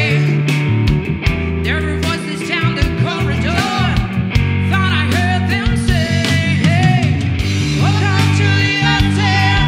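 Live rock band playing: a woman singing lead over electric guitar, bass guitar and drums with cymbals.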